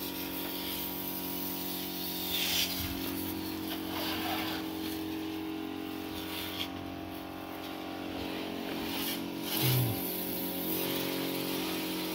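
Steady motor hum holding one pitch, with short hissing spells of a water jet spraying onto the tractor's metalwork, the loudest about two and a half seconds in and near ten seconds in.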